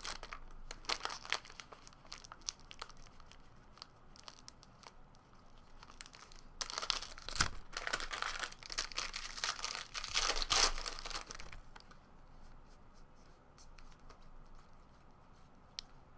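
Foil wrappers of trading card packs being torn open and crinkled, with cards shuffled in between; the crackling comes in bunches, heaviest in the middle, sparser and fainter toward the end.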